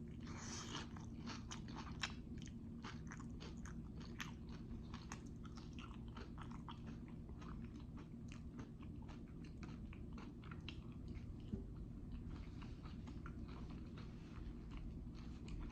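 A person chewing jalapeño poppers close to the microphone: a steady run of small crunching clicks.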